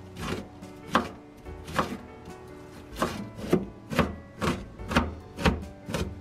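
Verdun kitchen knife chopping diced onion on a cutting board: sharp knocks of the blade striking the board, spaced unevenly at first, then coming about two a second.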